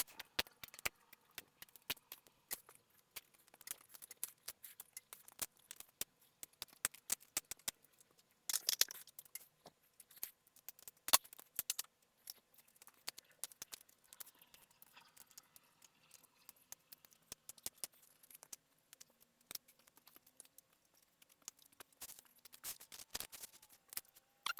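Small plastic Lego bricks clicking and clattering as they are handled and pressed together, a steady run of light clicks with a brief rustle about nine seconds in and a sharper knock about two seconds later.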